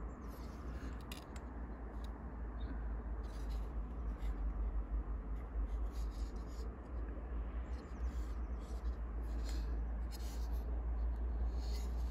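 Hands handling an open Spyderco Military folding knife: light rubbing and scratching with scattered small clicks, over a steady low rumble.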